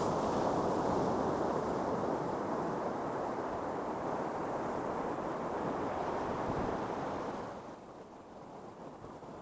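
Ocean surf on a sandy beach: the wash of a breaking wave runs loud, then dies away about three-quarters of the way in as the next wave begins to build near the end.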